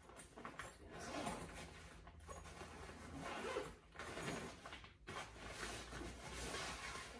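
Zipper of a Nike backpack being pulled open in several strokes, with the nylon fabric rustling as it is handled.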